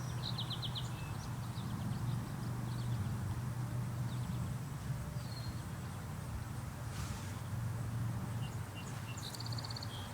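Wild birds chirping and giving quick trills in short, scattered calls over a steady low hum, with a brief rustle about seven seconds in.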